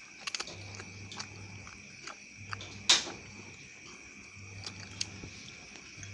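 Eating sounds at a bowl of ramen: scattered light clicks and taps of utensils, with one sharp clink about three seconds in, over a steady background hum.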